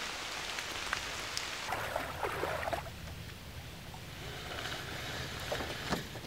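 Steady rain falling for about the first three seconds. Then it gives way to a quieter outdoor background with a low steady rumble and a couple of sharp knocks near the end.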